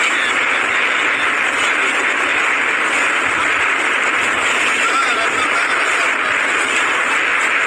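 Cyclone-force wind and driving rain: a loud, steady rushing noise with no letup.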